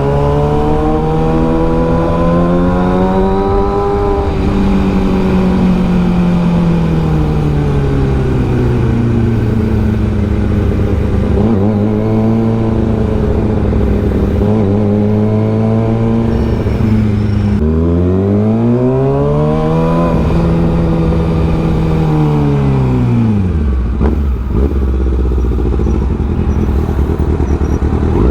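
Kawasaki ZX-6R inline-four sportbike engine under way. The revs climb over the first few seconds, fall back and hold steady, then jump sharply about two-thirds of the way in, rise and fall once more, and settle to a low, steady note for the last few seconds.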